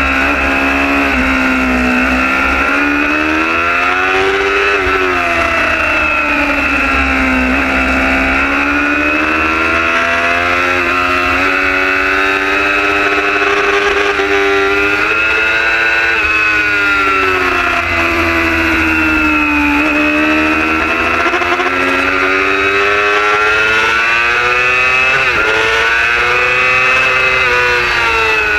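Racing superbike's engine heard from an onboard camera at race pace, its pitch climbing and dropping again and again as the rider accelerates out of corners and rolls off for the next, with a steady low rumble underneath.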